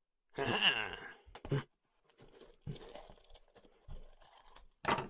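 A paring knife cutting into a green bell pepper, the crisp flesh crunching and crackling. There is a loud crunch as the blade goes in about half a second in, softer crackling as it cuts around the top, and a sharp snap near the end.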